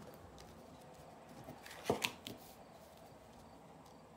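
An oracle card drawn from the deck and put down on the table: one short, sharp snap about two seconds in, followed by a couple of faint ticks, over quiet room tone.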